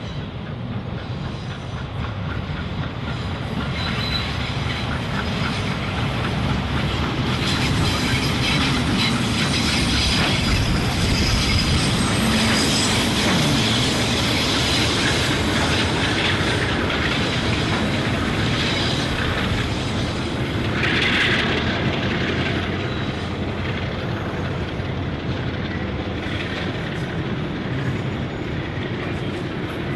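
Train running on the track: wheels clattering on the rails, with some squeal from the wheels. It grows louder over the first several seconds, then holds before easing off slightly.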